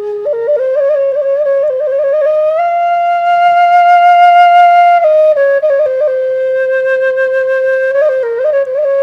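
Vertical wooden flute playing a slow solo melody. It climbs from a low note through quick ornamental flicks to a long held high note midway, then falls back to a lower sustained note with more ornaments near the end.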